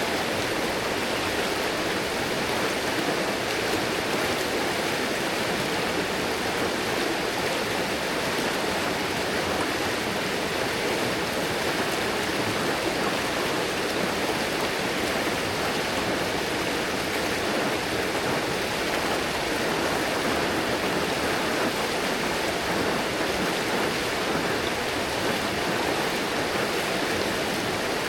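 River water rushing and splashing over rocks, a steady, even rush of running water.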